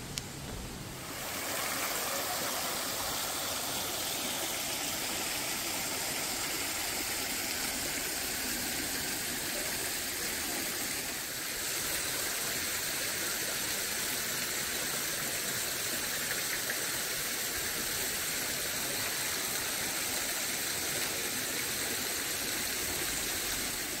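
Steady rush of running water, dipping briefly and changing slightly about halfway through.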